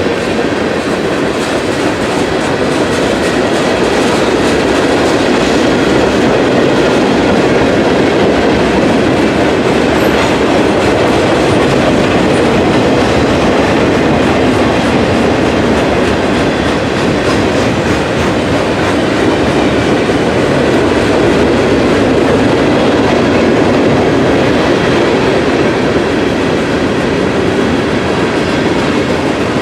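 CSX freight train's cars rolling past close by, a steady rumble and clatter of steel wheels on the rails.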